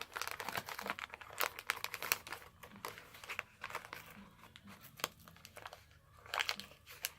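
Wax-paper wrapper of a 1981 Donruss baseball card pack crinkling in the hands as it is handled and torn open, a run of irregular sharp crackles.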